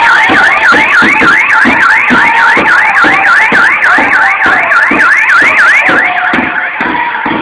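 A loud electronic siren-like warble, its pitch sweeping up and down about four times a second, over a steady thumping beat about twice a second. The warble stops about six seconds in.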